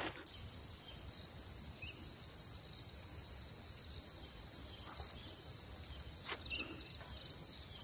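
Steady high-pitched chorus of cicadas, starting suddenly just after the start and holding unchanged, with a couple of faint taps near the middle.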